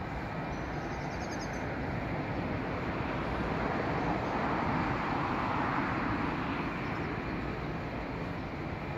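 Steady outdoor rumble and hiss that swells to a peak midway and then eases off, with a short bird chirp about a second in.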